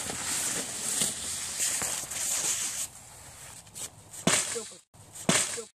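Fir branches rustling and swishing as a person pushes through them, then a stick whacking the trees twice near the end.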